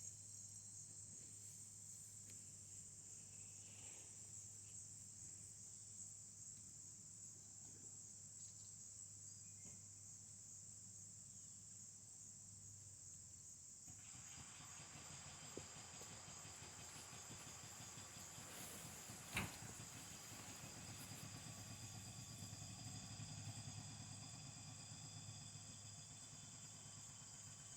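Near silence: faint steady background hiss and hum, with a single sharp click about nineteen seconds in.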